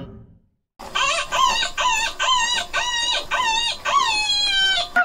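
Chicken calling, starting about a second in: a quick run of short rising-and-falling notes, about two or three a second, ending in one longer falling note near the end.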